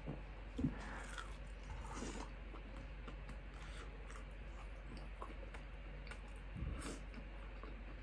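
A person chewing a fried chicken tender, faint, with scattered small clicks and handling noises and one sharp click about half a second in.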